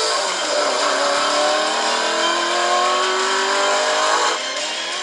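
Car engine sound effect revving, its pitch climbing slowly, then cut off abruptly about four seconds in.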